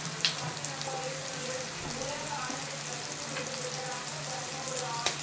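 Diced brinjal, raw mango and potato frying in oil in a pan: a steady low sizzle, with a light click just after the start and another near the end.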